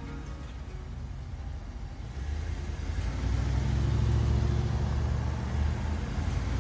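Canister vacuum cleaner running with a loud, steady droning rumble that swells about two seconds in and stays loud.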